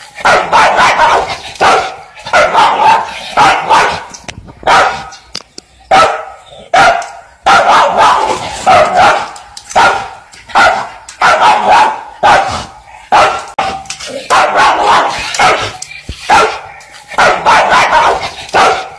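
Dog barking repeatedly and loudly, in runs of several quick barks broken by short pauses.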